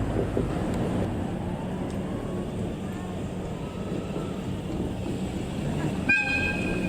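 A DE10 diesel-hydraulic locomotive's V12 diesel engine running with a steady low rumble. About six seconds in, the locomotive sounds a high air whistle that starts sharply and holds steady.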